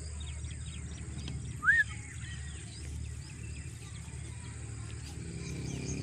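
A parakeet gives one short, loud squawk that rises and falls in pitch, nearly two seconds in. Faint high chirping of small birds and a steady low outdoor rumble run underneath.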